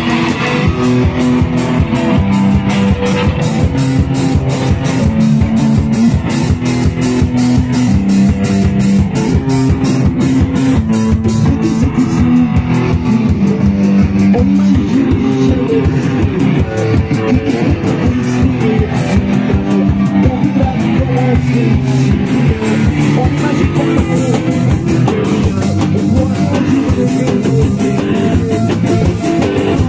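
Rock band playing loud and live without vocals: electric guitar and bass on a repeating riff over a steady drum-kit beat, with a saxophone joining near the end.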